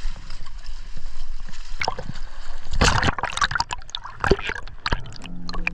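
Sea water sloshing and splashing as a diver steps off the rocks into the sea, with a quick flurry of splashes and bubbling as he goes in and under, from about two seconds in. Music begins near the end.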